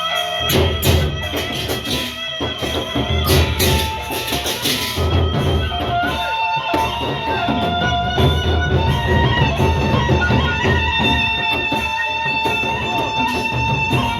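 Sasak gendang beleq ensemble playing an opening piece: large drums beating continuously under held melodic lines that shift in pitch every second or so.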